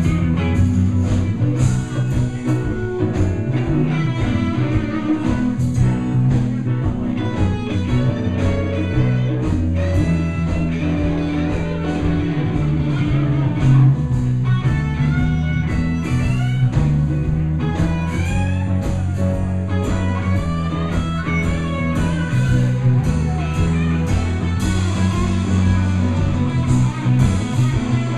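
Live blues band playing an instrumental passage: electric guitar to the fore, with note runs and bends, over a moving bass line, drums and keyboard.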